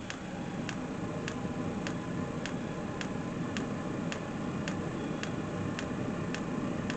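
Diesel air heater running: a steady rush from its combustion fan and exhaust under a regular sharp ticking, one and a half to two ticks a second, from its fuel dosing pump.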